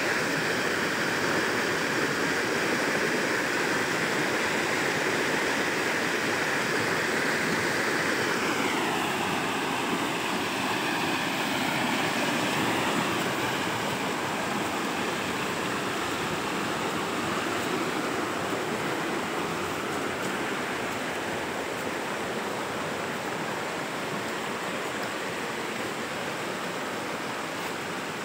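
Heavy rain pouring steadily, a dense hiss that eases slightly past the halfway point.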